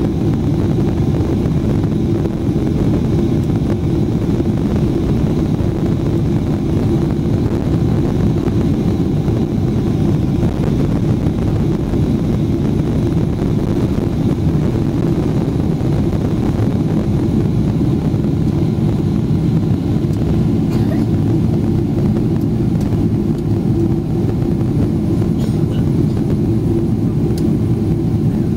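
Boeing 777-300ER's GE90-115B engines at takeoff thrust, heard inside the cabin as a steady loud noise through the takeoff roll and liftoff.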